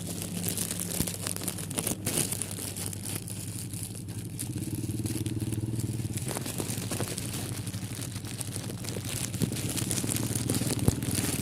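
A small engine running steadily, with crackling and rustling over it.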